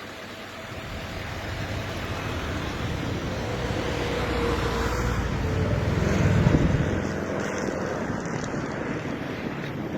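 A motor vehicle passing by, its noise building up to a peak about six seconds in and then fading, with wind on the microphone.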